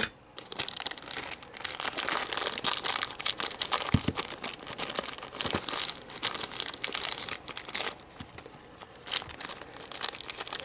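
Hard plastic model-kit pieces being handled and fitted together by hand: a dense run of crinkling and small plastic clicks, with a sharper knock about four seconds in.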